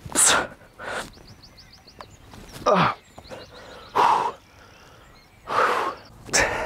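A person breathing out hard in short puffs about six times, one of them a falling grunt about three seconds in: effortful breathing from working through a set of bodyweight chest dips.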